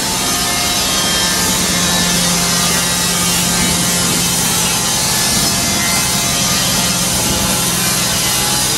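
Steady loud hiss of compressed air in a paint spray booth, from a spray gun laying candy red paint on a brake caliper, with a steady low hum underneath.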